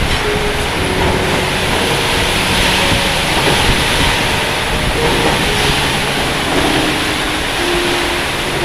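Heavy rain with strong wind: a loud, steady rushing noise with no breaks.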